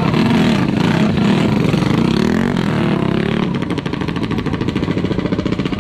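Small racing motorcycle engine revving, its pitch rising and falling in blips. About three and a half seconds in it drops back to a steadier, quieter running.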